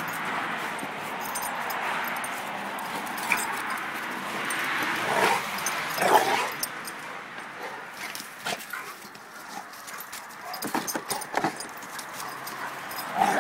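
A pitbull and a bandog wrestling at close quarters, with dog noises throughout that are loudest twice, about five and six seconds in. The second half is quieter scuffling, broken by scattered short knocks and clicks.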